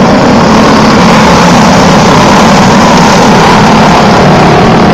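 A pack of racing dirt-track go-karts at full throttle, their small engines running together, loud and steady.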